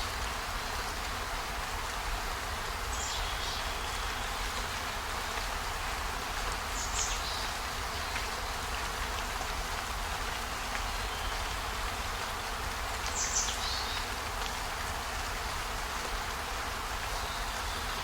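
Steady, even rain-like hiss over a low rumble, with a few faint, short, high-pitched ticks about 3, 7 and 13 seconds in.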